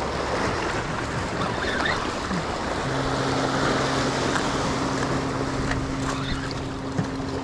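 Waves washing and breaking over jetty rocks, with wind on the microphone. About three seconds in, a steady low drone joins and holds for about four seconds.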